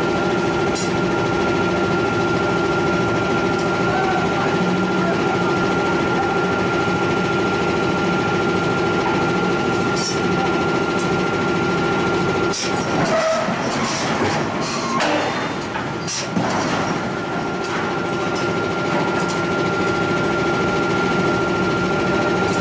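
A steady machine drone with a high whine runs on. About halfway through it breaks off for a few seconds of metal clanks and scraping, then resumes.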